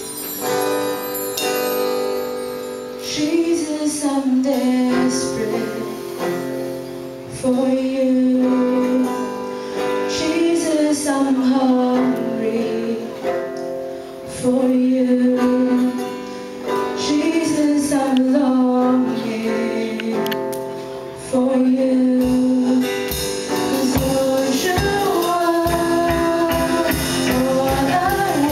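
Live band playing a worship song: a woman sings the lead melody over electric guitars, bass guitar and drums.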